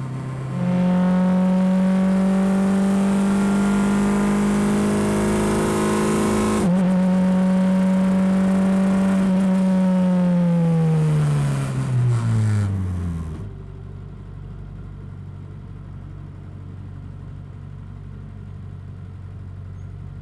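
Formula 4 racing car engine at high revs, holding a steady high note with a brief dip about six and a half seconds in. Its pitch then falls steadily as the car slows, and it drops to a quieter low steady hum after about thirteen seconds.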